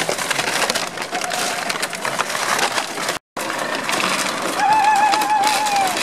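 Empty plastic bottles crackling and crunching as Beauceron puppies and people tread over a ground covered with them, with a brief dropout about three seconds in. Near the end a wavering high call lasts about a second over the crackling.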